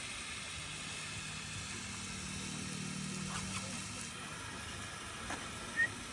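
A low steady hum that fades out about four seconds in, with a few faint clicks and knocks near the end.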